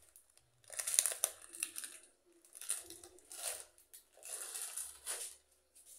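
Plastic packet of dried pancit habhab noodles crinkling as it is handled, in three spells of rustling.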